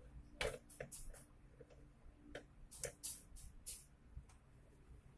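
Faint, irregular light clicks and taps of small parts being handled while a cordless drill is taken apart, about a dozen in all.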